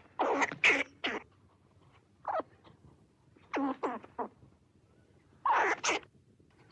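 Short monster roar sound effects, several bursts in quick groups with pauses of about a second between.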